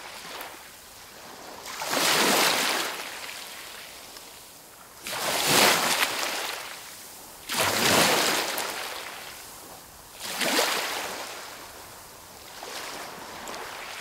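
Sea waves washing onto a shore, about five times, each a rush of surf that swells and then fades away, two to three seconds apart; the last one near the end is weaker.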